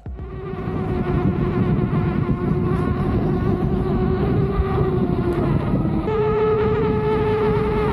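Inmotion V13 electric unicycle being ridden: a steady high whine from its hub motor over dense road and wind noise, the whine stepping up a little in pitch about six seconds in.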